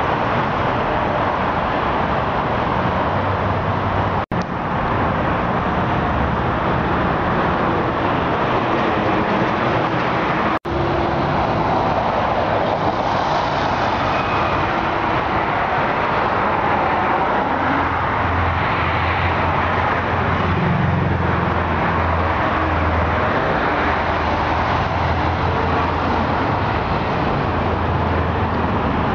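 Steady road traffic noise, with a low engine hum in the second half. It cuts out for an instant twice, about four and ten seconds in.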